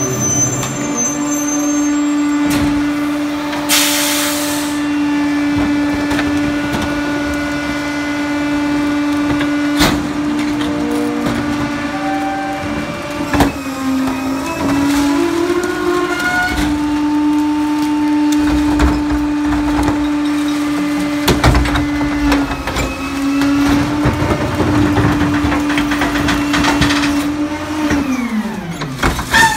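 Pak-Mor rear-loader garbage truck running its packer cycle: a steady whine of engine and hydraulics with a short air hiss about four seconds in and a few knocks from the bins. Near the end the pitch falls away as the cycle finishes.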